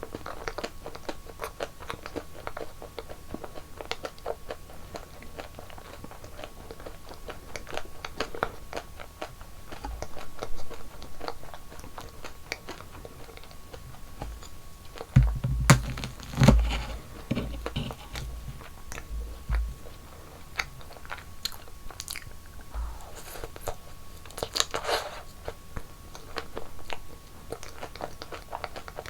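Close-miked eating: steady crunching and chewing of snacks, with a few heavy low thumps about halfway through and a louder rustling burst later on.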